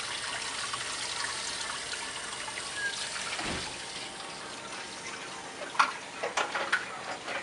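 Water running from a lab sink faucet as stainless juicer parts are rinsed under it, a steady hiss that eases after about four seconds. Near the end come several sharp clinks and knocks as the parts are handled.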